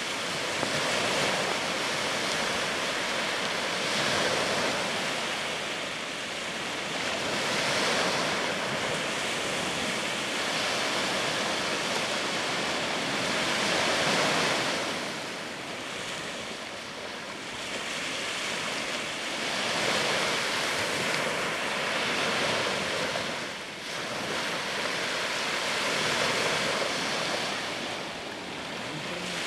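Small sea waves washing onto the shore: a steady rushing wash that swells and eases every few seconds.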